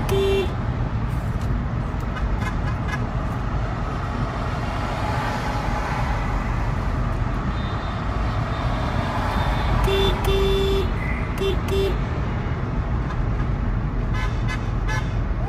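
Car horn honking over the steady road noise of a moving car heard from inside: a short toot at the start, then about ten seconds in a burst of honks, one long and three short. The honks answer the protesters' 'HONK' signs in support.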